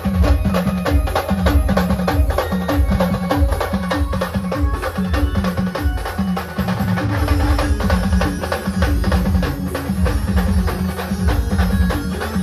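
A Maharashtrian street band playing loud, fast music: dense, driving drumming over a short low melody that repeats again and again.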